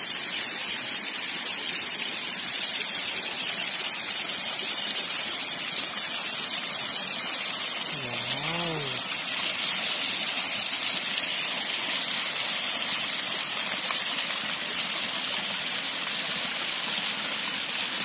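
Water of a small waterfall cascading over rock ledges and splashing onto the rocks below, a steady rush of falling water.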